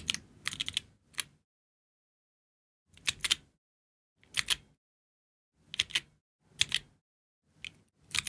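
Keys of a Georgi stenographic keyboard clacking as chords are struck: a quick run of strokes at the start, a pause of about a second and a half, then six separate chorded strokes roughly a second apart.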